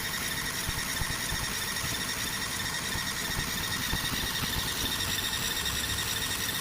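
Fiber laser marking machine running while it engraves: a steady high-pitched whine with overtones, over an even hiss of machine noise.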